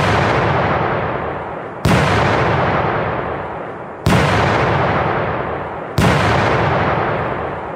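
Four heavy cinematic impact hits, one about every two seconds, each striking suddenly and dying away slowly before the next, as at the opening of a music soundtrack.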